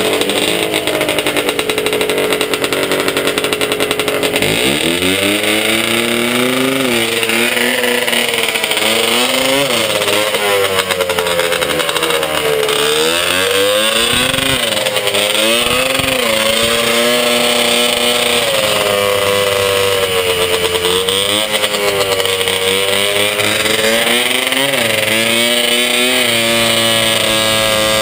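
Small air-cooled engine of a handlebar-steered snow vehicle running steadily, then revving up sharply about four seconds in and pulling the vehicle along, its pitch rising and falling repeatedly as the throttle is opened and eased.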